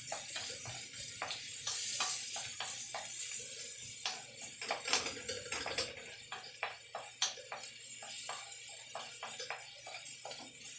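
Wooden spatula scraping and knocking against a metal wok in quick irregular strokes while garlic and ginger fry in butter and oil, with a steady sizzling hiss underneath.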